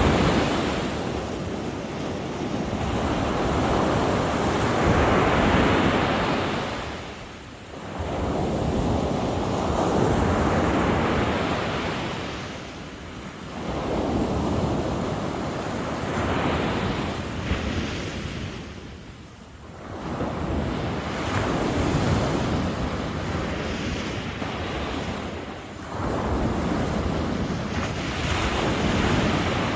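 Sea waves breaking and washing up the shore, the surf swelling and falling back in slow cycles about every six seconds.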